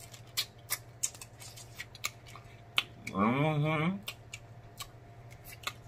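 Close-miked eating of snow crab meat: wet lip smacks and sharp mouth clicks come quickly throughout. About three seconds in comes a hummed 'mmm' moan of enjoyment, about a second long and the loudest sound.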